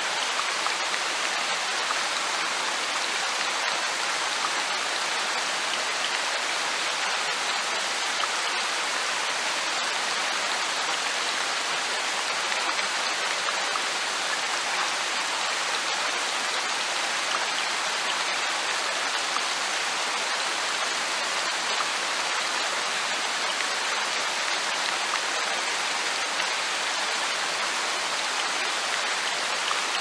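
Light rain falling steadily in a forest: an even hiss of many small drops that does not let up or change.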